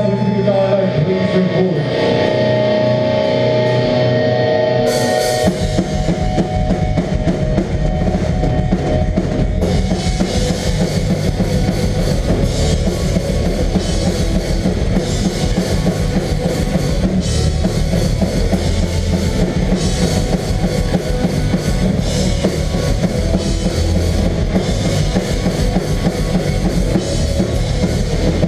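Melodic hardcore band playing live, loud: ringing guitar chords at first, then about five seconds in the full band crashes in with heavy drums, bass and distorted guitars, cymbals thickening a few seconds later.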